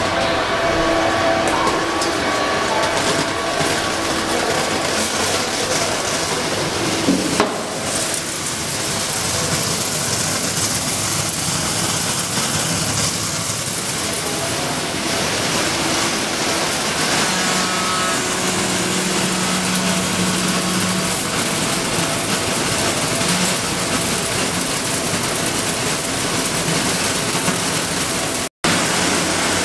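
Plastic-flake colour sorting machine running: a steady, dense hiss and rattle of machinery and falling flakes, with a few faint steady hum tones. A short knock comes about seven seconds in, and the sound cuts out for an instant near the end.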